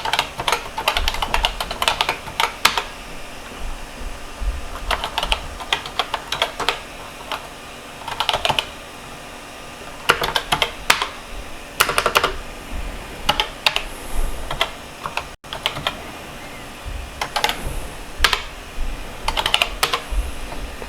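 Keys typed on a computer keyboard in short bursts of quick clicks with pauses between, entering a new gain value and running a program.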